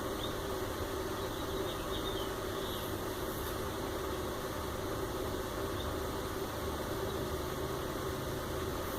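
Steady background hum, an even machine-like drone with a faint constant tone and no distinct knocks or clicks.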